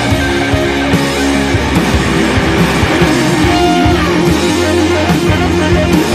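Background rock music with a steady beat and guitar.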